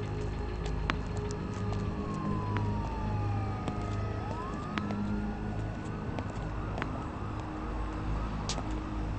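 A siren wailing in slow sweeps, its pitch falling, then rising and falling again, over a steady low hum.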